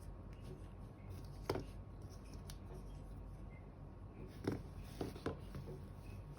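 Handling noise from small objects: a few sharp clicks and knocks, one about a second and a half in and a cluster near the end, over a faint low hum.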